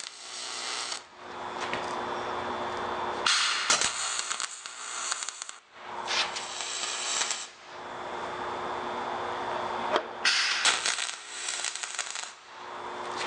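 Aluminum MIG welding arc from a spool gun laying a bead on 3/8-inch aluminum plate: a steady crackling hiss that stops briefly a few times between runs and turns harsher in several stretches, over a faint steady hum.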